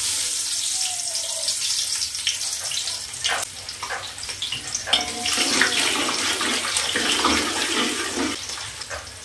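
Hot oil in a steel pot sizzling loudly as ingredients hit it: the sizzle starts suddenly, right after a sharp click. A metal slotted spoon stirs the pot, adding clicks and a busier patch of sizzling about five seconds in.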